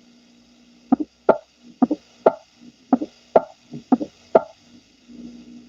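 Recorded heart sounds heard through a stethoscope: four heartbeats about a second apart, each a pair of short thuds over a faint steady hum, played as an example of a fourth heart sound (S4), the late-diastolic sound of a stiff ventricle.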